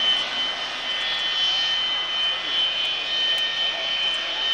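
US Air Force T-43A (Boeing 737-200) taxiing, its twin Pratt & Whitney JT8D turbofans giving a steady high whine over a rushing hiss.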